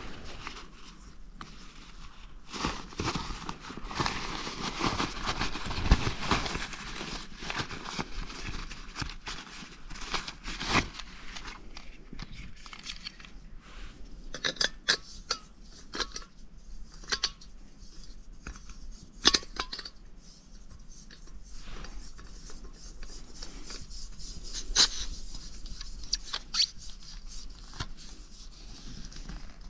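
Camping gear being handled: ongoing rustling and crinkling with scattered sharp clicks and knocks.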